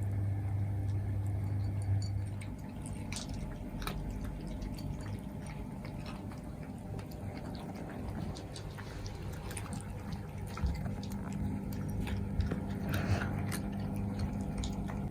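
Several cats eating, with scattered small clicks of chewing and lapping over a steady low hum.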